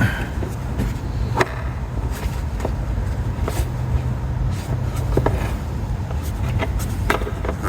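Hands fitting an LED headlight bulb into a pickup truck's headlight housing: a few scattered light clicks and taps, about five over several seconds, over a steady low hum.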